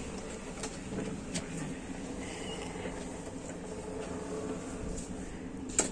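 Steady low mechanical hum, with a few faint clicks and a sharper click just before the end.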